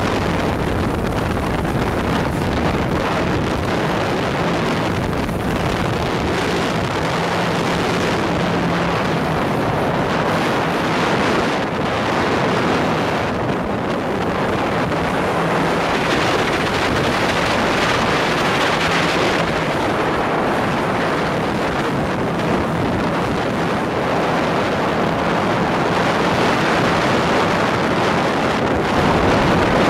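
Speedboat running at speed: a steady engine drone under heavy wind buffeting on the microphone and the rush of water along the hull.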